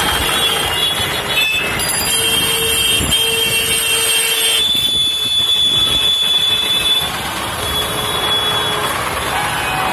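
Congested road traffic with motorcycle and car engines, and vehicle horns sounding several times in long steady blasts.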